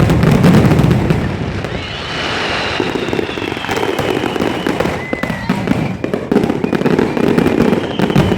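Fireworks display going off in a rapid, continuous run of bangs and crackles, with high whistling tones from about two seconds in.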